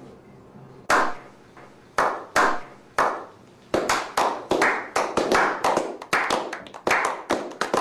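Hands clapping in a slow clap: single sharp claps about a second apart, then speeding up to three or four claps a second from about four seconds in, each with a short echo.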